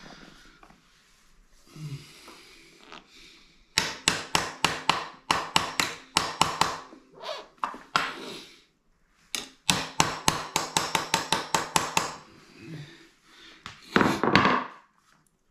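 Hammer tapping a steel pin through a scooter's shock mount, quick light blows about five a second in two long runs, the metal ringing faintly under them. A louder short burst comes near the end.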